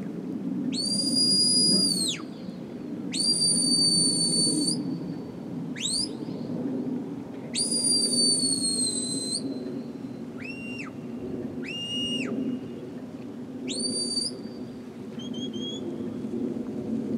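Sheepdog handler's whistle commands to a working Border Collie: a run of clear high whistle notes, three long held ones that dip at their ends, short quick upward-sweeping ones, and two shorter lower notes.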